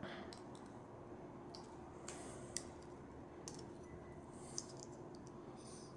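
Small plastic Lego minifigure pieces being handled and clicked together, a few sharp separate clicks with light rustling, over a faint steady hum.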